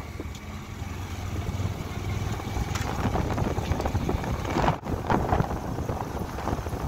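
Motorcycle running along a road, its low engine drone under wind buffeting the microphone. The sound cuts out briefly about two-thirds of the way through.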